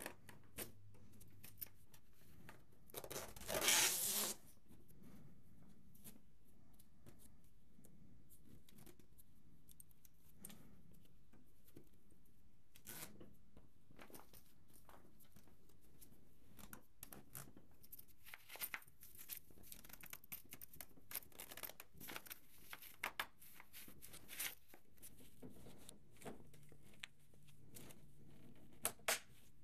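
Fabric seat cover being handled and fitted onto the plastic seat shell of a 4moms mamaRoo baby rocker: rustling and small clicks, with one loud ripping sound lasting about a second, starting about three seconds in.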